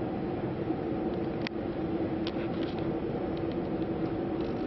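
Steady droning hum of a passenger ferry's onboard machinery, heard inside its public rooms, with a few faint clicks around the middle.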